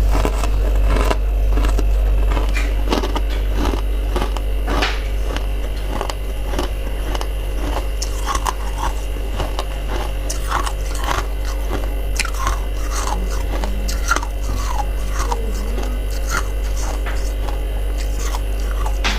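Irregular crunching clicks, several a second, over a steady low hum.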